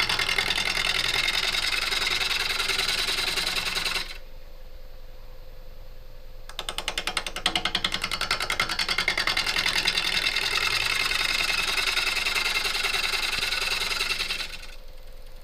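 Bowl gouge cutting a walnut wedge spinning on a wood lathe: a rasping cut with rapid rattling ticks, in two long passes. Between them, from about four seconds in, comes a pause of two and a half seconds where only the lathe's steady hum remains.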